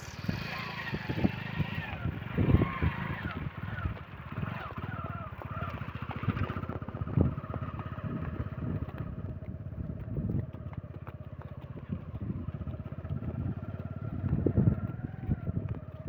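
Motorcycle engine running at low speed, with wind buffeting the microphone and irregular thumps.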